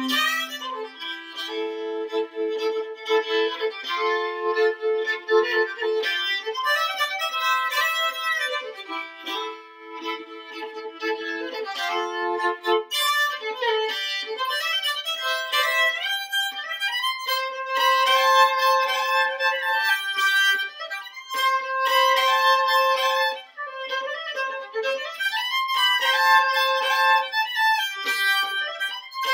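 Solo fiddle playing a folk fiddle tune: long held double stops in the first half, then a quicker bowed melody from about halfway through.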